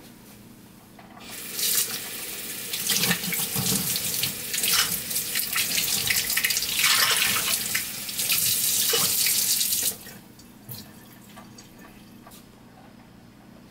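Kitchen faucet running into a stainless steel sink, the stream splashing over and through a Flair espresso maker's brewing chamber as it is rinsed out. The water comes on about a second in, the splashing changes as the chamber is moved in the stream, and it is shut off suddenly about ten seconds in.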